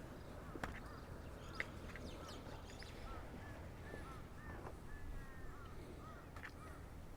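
Birds calling in a series of short, repeated chirping notes, mostly in the middle stretch, over a faint steady low hum, with a few sharp clicks.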